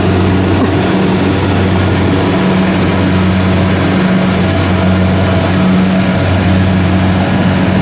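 Kubota DC70 Pro combine harvester working as it cuts and threshes flattened rice: a steady diesel engine drone under a constant hiss, with no change in pace.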